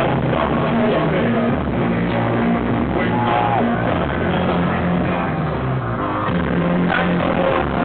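Live synthpop band performance, with a synth bass line moving in held notes under the full mix.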